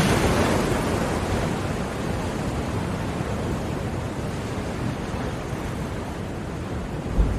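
Sea waves on a shore: a wave washes in at the start and slowly ebbs away, and the next one begins to swell near the end.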